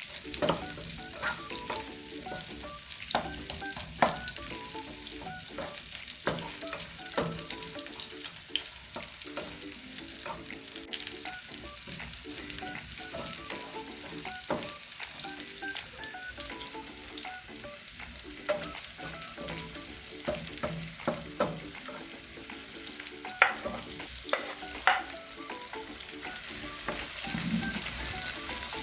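Food sizzling in a frying pan while it is stirred, with the utensil clicking and knocking against the pan every so often, a few louder knocks near the end.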